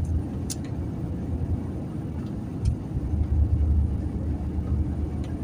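Truck driving slowly, its engine and tyre rumble heard from inside the cab as a steady low drone, with a few faint clicks.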